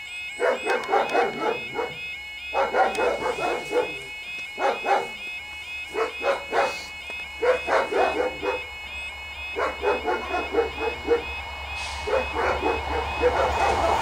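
A dog barking in quick bouts of several barks every couple of seconds, over the steady warbling of a level crossing's audible alarm. A low rumble builds toward the end as a train approaches.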